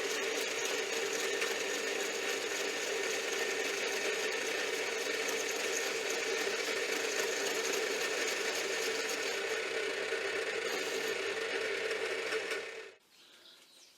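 Metal lathe running while it takes a light skim cut along the outside of a steel workpiece: a steady mechanical whir with a faint gear rattle. It stops abruptly about 13 seconds in, as the lathe is switched off.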